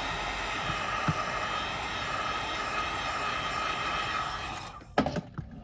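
Heat gun blowing steadily with a faint whine, heating the screen adhesive so the display can be lifted; it cuts off about four and a half seconds in. A sharp knock and a couple of clicks follow near the end.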